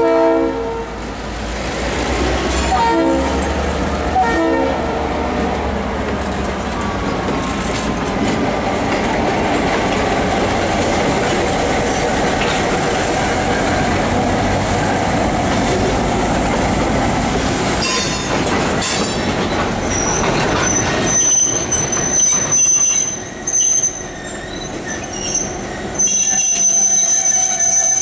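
Diesel locomotive horn: a chord ending about half a second in, then two short toots about three and four and a half seconds in. Then EMD diesel switchers (a GP9 and an MP15) and a tank car roll past with steady wheel noise and wheels squealing, a high thin squeal in the last third.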